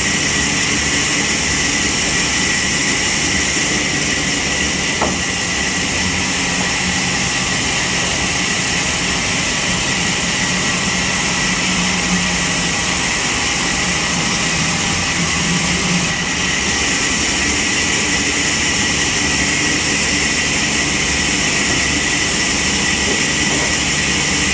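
Sawmill machinery running steadily with a constant high whine over a lower hum.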